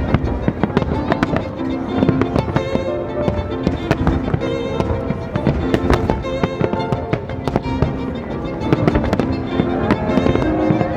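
Aerial fireworks bursting, with many sharp bangs and crackles in quick, uneven succession. Violin music plays over the bursts.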